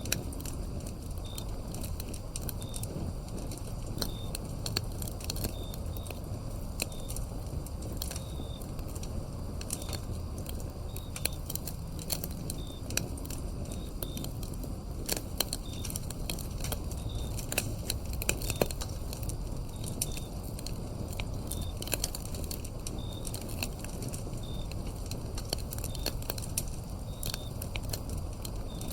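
Wood fire crackling, with frequent sharp pops over a low steady rumble. Crickets chirp in short, high chirps about every second.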